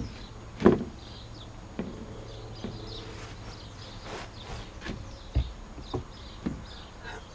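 OSB boards being shifted and pressed into place on a steel frame: a few separate knocks and thumps with some scraping, the loudest about half a second in.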